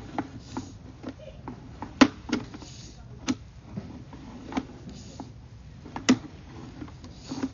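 Irregular sharp clicks and knocks, about half a dozen loud ones, as a sewer inspection camera's push cable is pulled back through the pipe.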